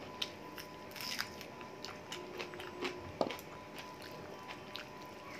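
Close-miked eating sounds: chewing a mouthful of rice and chicken curry, with irregular wet mouth clicks and smacks and the fingers working the rice on the plate.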